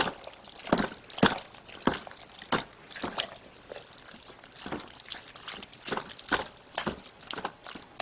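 Boiled radish being stirred into cooked glutinous rice in a rice cooker pot: irregular wet squishes and clicks of the utensil against the pot, about one or two a second.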